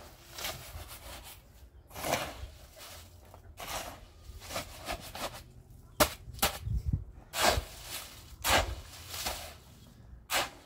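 Irregular knocks and short scrapes, about a dozen, with quiet gaps between them; the sharpest knock comes about six seconds in, followed by a few dull low thuds.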